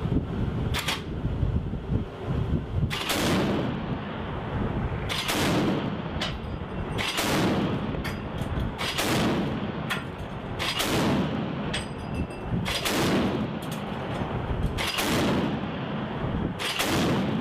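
Ship-mounted Mk38 25 mm M242 Bushmaster chain gun firing, a heavy report about every two seconds, each trailing off in a long echo. Steady low wind rumble on the microphone lies underneath.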